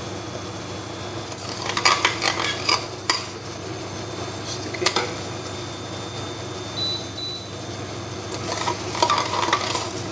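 Palm-sugar and fish-sauce caramel sizzling in a cooking pot as it cooks down toward golden brown. A utensil scrapes and clinks against the pot in two bouts of stirring, about two seconds in and again near the end, with a single knock in between.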